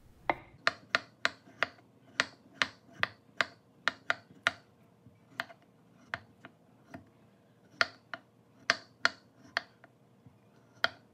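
Kitchen knife chopping a raw potato on a wooden cutting board: sharp knocks of the blade striking the board, about two or three a second, thinning out in the middle before picking up again.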